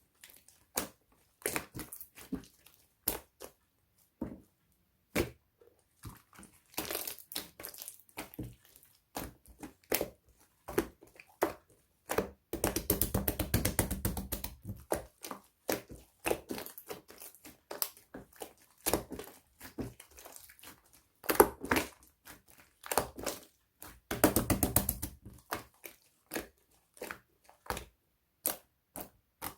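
Slime being squeezed, pressed and stretched by hand, giving irregular sharp clicks and pops of trapped air. Twice, around the middle and again near the end, it breaks into a fast run of crackling pops as the slime is worked quickly.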